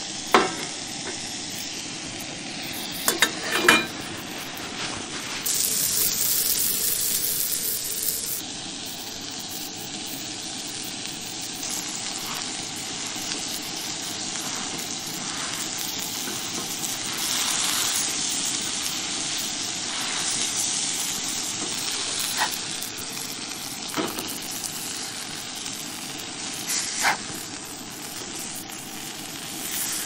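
Burger patties sizzling and frying in a cast-iron skillet on a propane camp stove, with a few sharp metal clinks of a plate and spatula against the pan.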